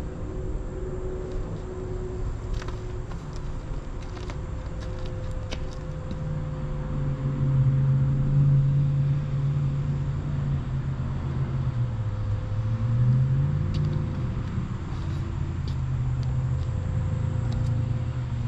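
A motor vehicle engine running, its low hum growing louder about six seconds in and briefly dipping and rising in pitch about twelve seconds in.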